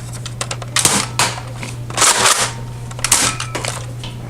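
Nerf blasters firing foam darts: a run of sharp plastic clicks and a few short puffs of air, about a second apart, over a steady low hum.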